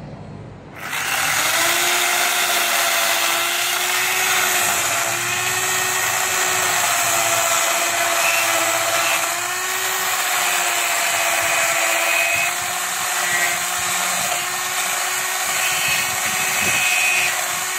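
A power tool running steadily, starting about a second in and stopping at the very end, its pitch wavering slightly as it works under load.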